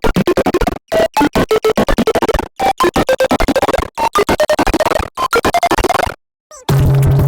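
A meme sound effect sped up hundreds of times, heard as rapid choppy, glitchy stuttering, about eight to ten bursts a second with jumping pitches and brief cut-outs. Near the end, after a short silence, it turns into longer buzzing blocks with a steady low tone.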